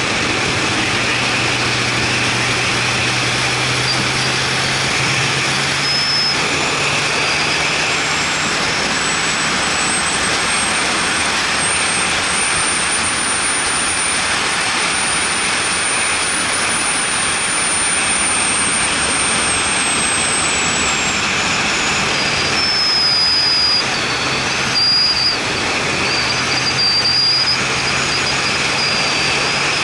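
Road vehicle driving at a steady cruise, heard from a camera mounted on it: a steady engine drone under a loud rush of wind and tyre noise, with a thin high whine that rises and falls through the middle.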